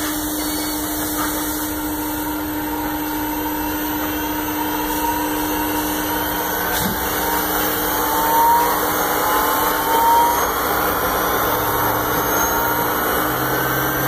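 5 HP HSD spindle of an AXYZ 6010 CNC router running its warm-up cycle: a steady, airy machine noise with a thin whine that climbs slowly in pitch as the spindle speeds up. It is running well, with no issues.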